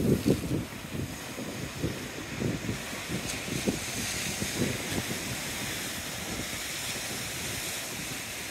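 Sea waves surging and washing against the foot of a stone seawall, a churning rush of surf. Wind buffets the microphone unevenly in the first half, then the surf settles to a steady rush.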